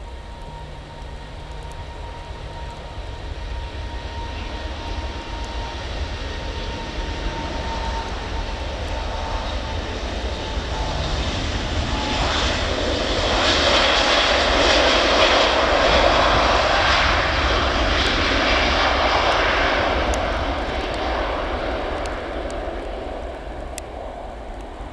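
Emirates Airbus A380's four jet engines at take-off thrust during its take-off roll. The sound grows louder to a peak a little past halfway as the aircraft passes, then fades as it moves away. A steady high whine at the start fades out over the first several seconds.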